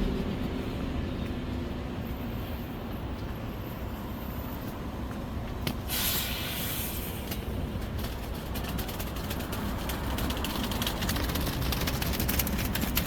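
City street traffic: a steady rumble of passing vehicles, with a short hiss about six seconds in and a run of sharp clicks toward the end.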